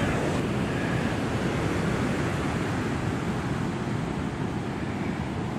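Ocean surf breaking and washing up a sandy beach, a steady rush, with wind rumbling on the microphone.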